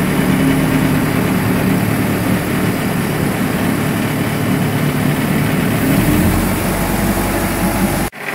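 A Mercruiser 3.0 inline-four sterndrive engine runs steadily as the boat moves slowly through the water, mixed with the rush of the wake. A deeper drone joins about six seconds in.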